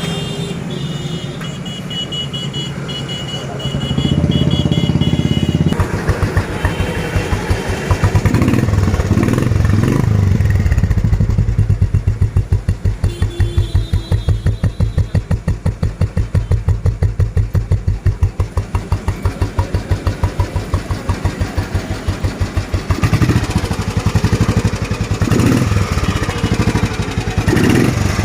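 Old Royal Enfield Bullet's single-cylinder four-stroke engine running after a tappet setting, giving its even thump-thump beat at idle, with some less even stretches where it is blipped.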